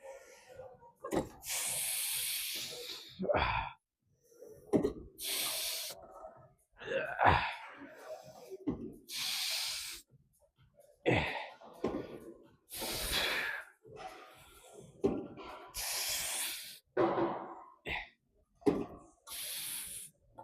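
A man breathing hard while straining through a set of heavy reps: a long, forceful hissing exhale about every three to four seconds, with shorter gasping breaths in between.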